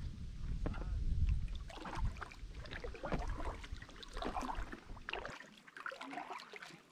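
Paddle strokes and water splashing and lapping around a packraft on a lake, with wind rumbling on the microphone; the wind rumble cuts off about five seconds in, leaving only the softer water sounds.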